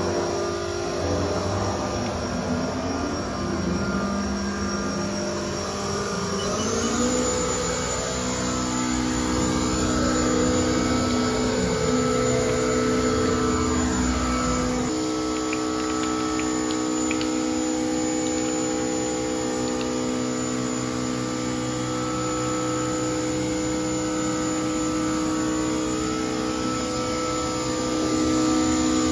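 Haas GR-712 CNC gantry router's spindle running. It rises in pitch about six or seven seconds in as it speeds up toward 15,000 RPM, then runs on with a steady high whine over a hum.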